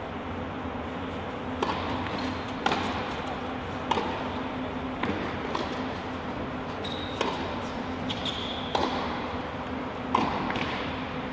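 Tennis balls struck by racquets in a baseline rally, about one hit a second, each hit echoing in a large empty arena, with a couple of short high squeaks in between. A steady low hum runs underneath.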